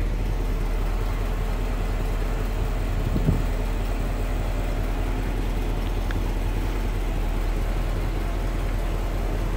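Steady mechanical hum from a 1966 Lincoln Continental convertible as its power top system raises the long rear deck lid, with a faint knock about three seconds in.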